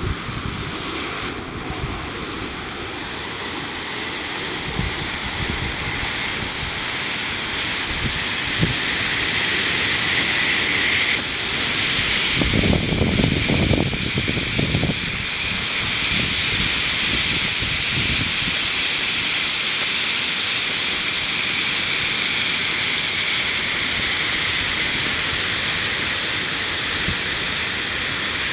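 Enola Gaye EG18X smoke grenade hissing steadily as it vents smoke. The hiss grows louder over the first several seconds and then holds level, with a burst of low rumble about halfway through.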